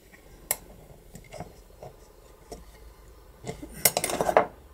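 Small metal parts of an opened garage lock clicking and clinking as they are handled and fitted into the steel lock case, with a sharp click about half a second in and a burst of louder clinking and scraping near the end.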